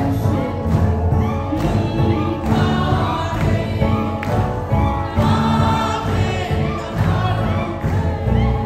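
A congregation singing a gospel chorus together over amplified music with a steady bass line.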